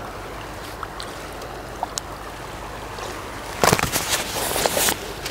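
River water flowing steadily, with a louder burst of splashing and sloshing a little after halfway through.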